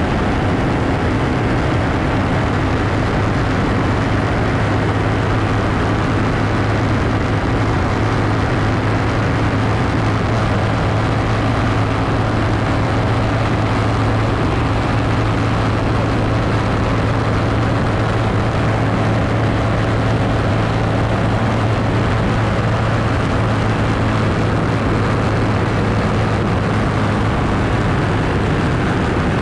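Nitro-burning 1948 Vincent 1000cc V-twin race engine running hard at a steady pitch at high speed, heard from on board the bike, with heavy wind rush over it.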